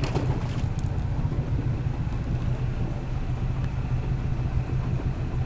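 Boat engine running steadily, a low even drone with no change in pace.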